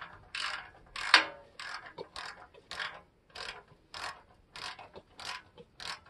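Hand socket ratchet wrench clicking in short repeated strokes, a little under two a second, as a bolt on a motorcycle's exhaust mount is loosened.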